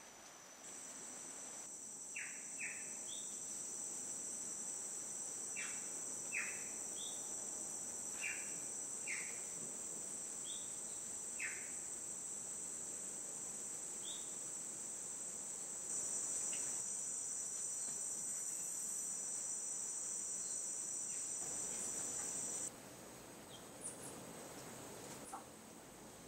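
A steady, high-pitched trill of insects, which gets louder about two-thirds of the way through and stops suddenly near the end. Short falling chirps, several in pairs, sound over it during the first half.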